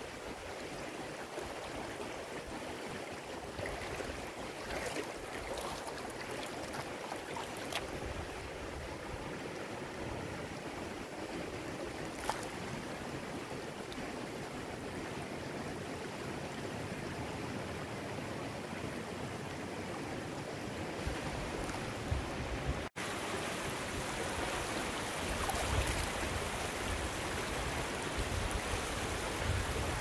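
Mountain stream water flowing over rocks, a steady rush. About 23 seconds in it cuts out for an instant and comes back a little louder and fuller.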